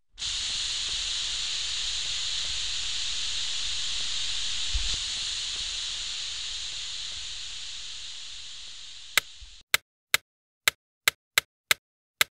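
A steady hiss that fades slowly and then cuts off suddenly, followed by eight short, sharp clicks at uneven spacing over about three seconds. The clicks are the loudest sounds.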